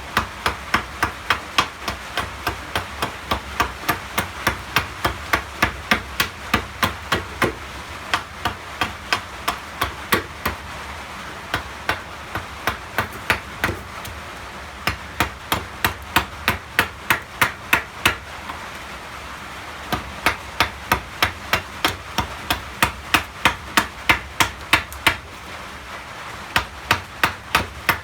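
Blacksmith's hammer striking steel on an anvil in steady runs of about three blows a second, with short breaks between the runs.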